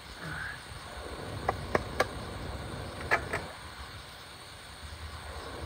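Light metal clinks of cookware, a pot lid being set in place: three quick clinks about a second and a half in, then two more about a second later, over steady background noise.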